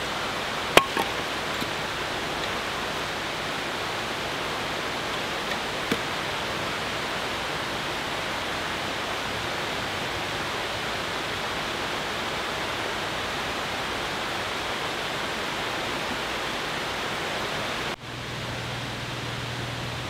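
Steady rushing of a rocky mountain creek, with a few sharp hatchet knocks on kindling in the first seconds, the loudest about a second in. Near the end the rushing drops to a softer hiss with a low hum.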